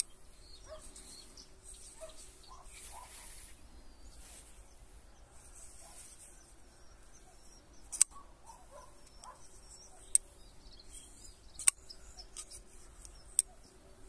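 Haptic-clone flipper folding knife being flicked open and shut in the hand: four sharp clicks, spaced a second and a half to two seconds apart, as the blade snaps open and closed. Birds chirp faintly in the background.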